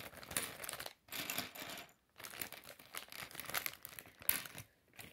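Clear plastic parts bag crinkling as it is handled and shaken out, with small plastic K'nex pieces clicking as they drop onto the pile on a wooden table. Two brief lulls come in the first two seconds, and there is one sharper click a little past four seconds in.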